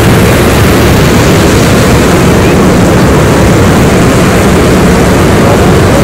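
Loud, steady roar of ocean surf breaking at the shoreline, mixed with wind rumbling on the microphone.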